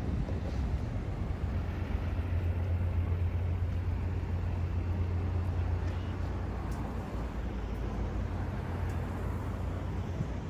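Low, steady rumble of road traffic, growing a little louder about two seconds in and easing off after about six seconds, as vehicles pass.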